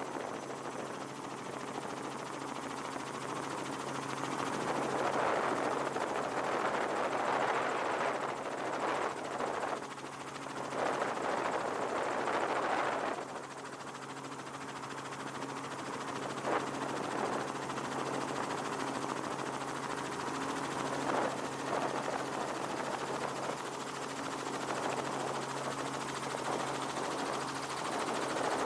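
Helicopter running steadily: a rapid chop of the rotor over a steady low hum, with a rushing noise that swells and fades.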